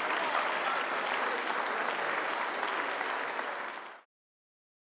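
Audience applauding, a dense patter of many hands clapping that tapers slightly and then cuts off abruptly about four seconds in.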